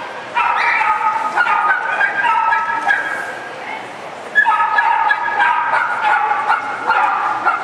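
Small dog barking in rapid, high-pitched yips, with a break of about a second near the middle before the yapping starts up again.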